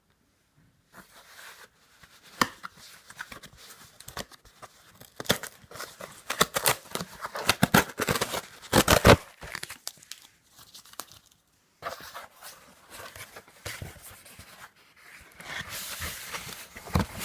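Packaging being torn open and crinkled by hand: irregular rips, crackles and knocks, with a short lull about two-thirds of the way through.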